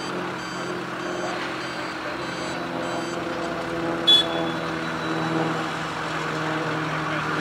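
A heavy vehicle's reversing alarm beeping in short repeated tones, stopping about three seconds in, over a diesel engine running steadily. A single sharp clank stands out about four seconds in.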